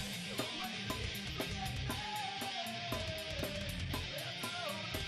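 Background rock music with an electric guitar playing a sliding lead line over a steady beat.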